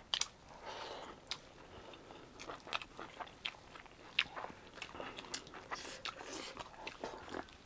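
Close-miked chewing of a meal of pork curry and rice: irregular wet mouth clicks and smacks as the food is bitten and chewed.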